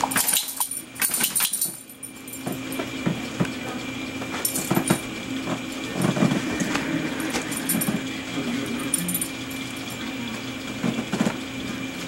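Dog digging and pawing at a blanket on a bed: irregular bursts of fabric rustling and scratching, the loudest in the first couple of seconds.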